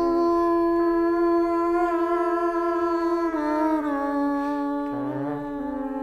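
Sustained humming drone of held notes: one note stays put while a lower note steps to a new pitch a few times across the stretch.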